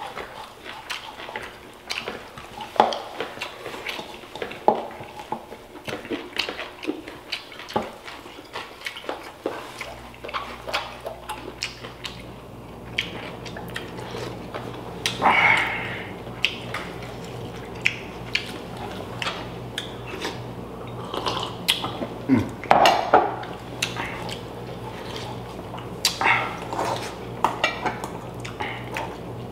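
Metal spoons clinking and scraping against ceramic bowls and plates while food is served and eaten, in scattered short clicks with a few louder knocks. A low steady hum sets in about a third of the way through.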